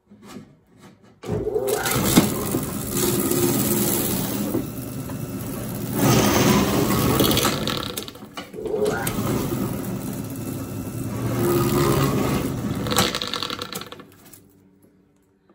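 Flail uncapper running, its spinning flails stripping the wax caps off a frame of capped honey. It starts about a second in, cuts out briefly about eight seconds in, runs again, and winds down near the end.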